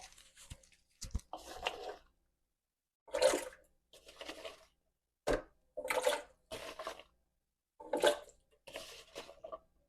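Water splashing and pouring in about seven short bursts, with a couple of sharp knocks in between.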